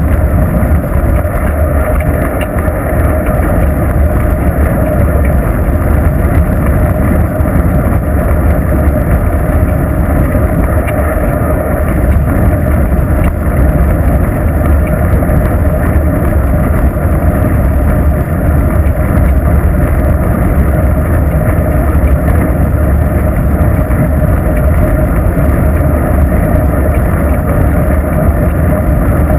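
Steady, loud wind rush and low rumble on the microphone of a bicycle-mounted GoPro while riding along a paved road.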